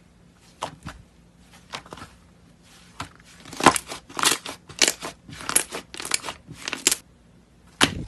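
Thick white slime being squeezed and stretched by hand, crackling and popping. A few small sharp clicks come first, then from about three and a half seconds in there is a run of about seven louder crackling squishes, roughly two a second.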